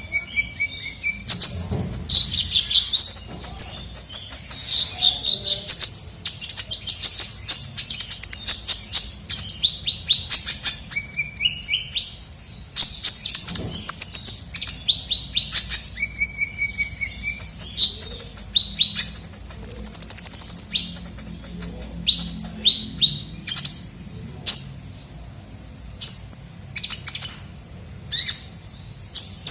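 A sunbird, the 'kolibri ninja' of the bird hobby, singing rapid high-pitched chirps and twittering trills in dense runs. A few short held whistles are mixed in, and one very high thin whistle comes about twenty seconds in.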